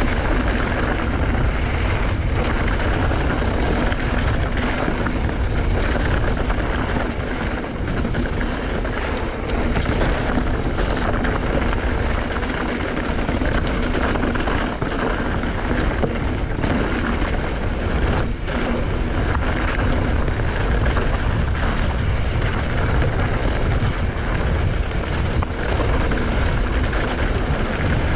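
Mountain bike riding fast down dirt singletrack, heard as a steady rumble of tyres on dirt mixed with wind rushing over the microphone, with scattered sharp clicks and knocks from rocks and the bike rattling.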